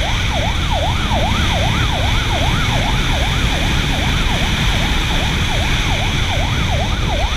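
Police motorcycle siren on the yelp setting: a rapid rising-and-falling wail, about three sweeps a second, over steady wind and road noise from the moving bike.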